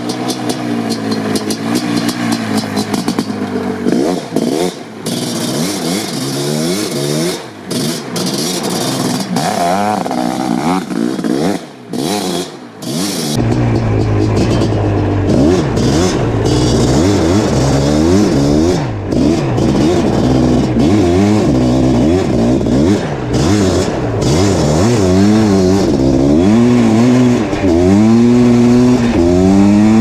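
Suzuki LT500R Quadzilla's 500cc single-cylinder two-stroke engine, breathing through an FMF Fatty pipe and Powercore silencer, revving up and down in repeated throttle bursts as the quad slides on gravel. First heard from beside the road as it approaches, then about 13 seconds in from on board, louder and with more low rumble, ending in a rising run up through the revs.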